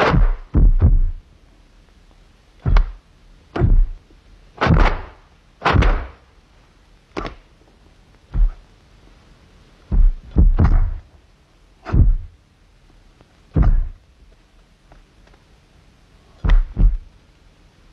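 Film sound effects for a martial-arts warm-up: a string of separate, sharp thuds and cracks, one every second or two at uneven intervals, that go with the fighters' stretches, punches in the air and neck rolls. There is no music under them.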